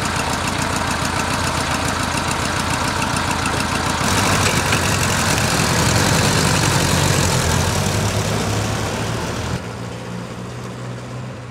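1984 Honda Gold Wing's flat-four engine, warm, idling steadily. About four seconds in it revs and pulls away, growing louder. Near the end the sound drops suddenly to a quieter, steady engine hum that fades as the motorcycle rides off.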